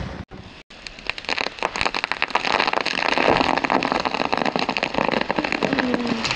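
A cut tree trunk crackling and splintering as the hinge wood gives way and the tree starts to tip over. The crackles come thicker and louder over the first few seconds, with a falling creak near the end.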